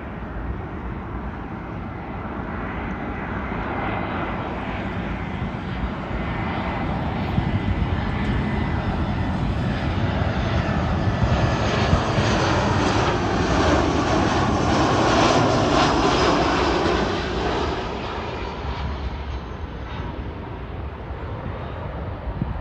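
Twin-engine Airbus jet airliner on landing approach flying past: its jet engines build steadily, are loudest a little past halfway, then fade. A faint steady whine rides on the rushing noise early on.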